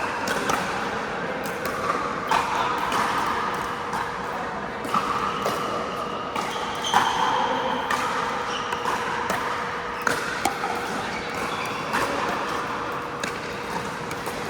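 Pickleball paddles hitting the hard plastic ball: a string of sharp, irregularly spaced pops, echoing in an indoor court hall.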